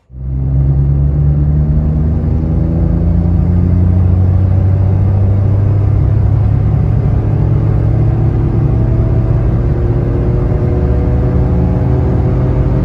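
Citroën C1's three-cylinder engine, with its catalytic converter removed, accelerating hard in third gear, heard from inside the cabin. The engine note climbs steadily in pitch as the revs rise.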